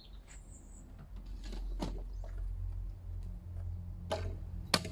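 Plastic parts of a Powershot Tennismash 2 tennis ball machine knocking and clicking as its hopper is handled and raised during setup: a few separate knocks, the sharpest near the end, over a steady low hum.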